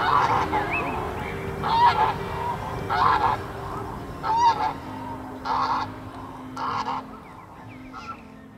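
Geese honking over and over, a call about every second, fading out toward the end.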